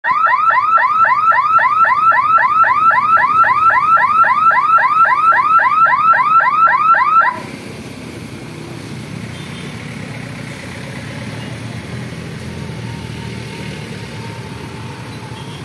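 Level-crossing barrier warning siren sounding a loud electronic warble of rising notes, about four a second, while the boom lifts, then cutting off suddenly about seven seconds in. After it, motorcycle and car engines run as traffic crosses the tracks.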